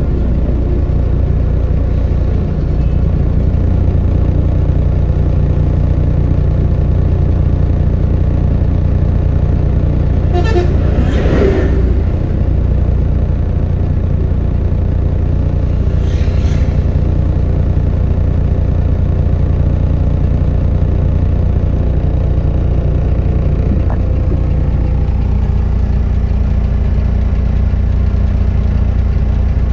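Caterpillar excavator's diesel engine running steadily under work, with a brief louder noise about ten seconds in and a fainter one around sixteen seconds.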